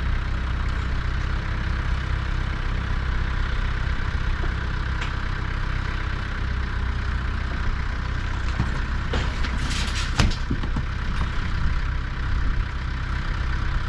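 Tractor engine running steadily while pulling the overturned coop over, with a cluster of knocks and rattles about nine to ten seconds in.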